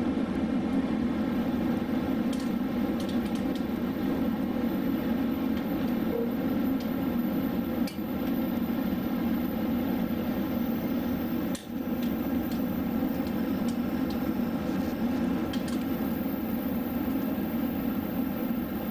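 Steady running noise inside a moving electric train carriage: a low, even hum and rumble with a few faint clicks.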